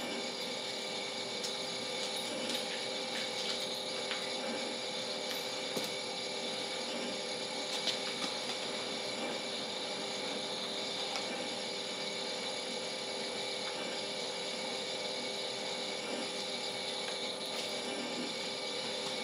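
Mill City Roasters 1 kg drum coffee roaster running steadily, its rotating drum and fan giving a constant mechanical rattle and hum with scattered small clicks, the sound of coffee beans tumbling in the drum mid-roast.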